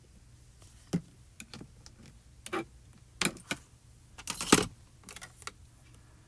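Irregular small clicks and taps from handling die-cut paper pieces and craft tools on a work surface, the loudest cluster about four and a half seconds in.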